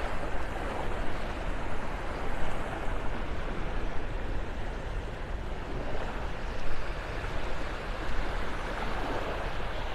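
Steady wash of small waves on a calm, low-tide beach, with a low rumble of wind on the microphone.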